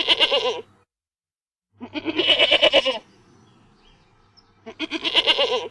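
Sheep bleating: three quavering bleats about two seconds apart, the last one cut off at the end.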